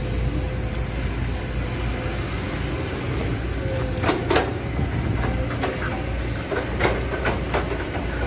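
Kobelco SK200 excavator's diesel engine running steadily while it digs, with a scatter of sharp knocks from the bucket and arm working the soil, loudest as a pair about four seconds in and again near seven seconds.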